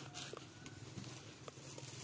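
Quiet background with a low steady hum and a few faint, light clicks.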